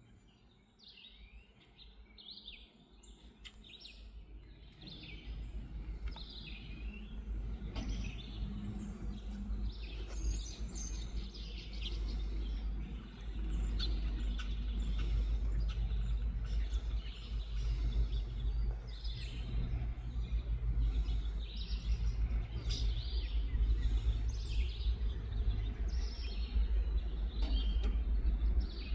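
Birds chirping throughout while the low rumble and hum of an approaching Norfolk Southern diesel freight locomotive grows steadily louder.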